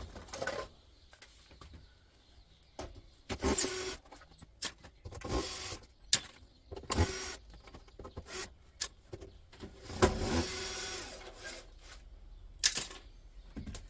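Cordless screwdriver or drill running in short bursts as it backs screws out of the brackets on the back of a steel electric hob, with clicks and metal knocks between the bursts; the longest run comes about ten seconds in.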